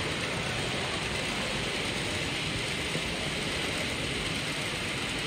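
Model train running along the layout track: a steady mechanical whirr and rattle from its motor and wheels, over an even background hiss of a busy hall.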